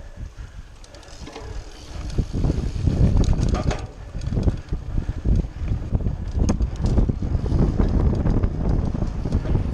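Mountain bike ridden over rough grass and then a cobbled path: tyre rumble and the rattle of the bike's chain and frame, with wind buffeting the microphone. The rumble gets louder and rougher about two seconds in.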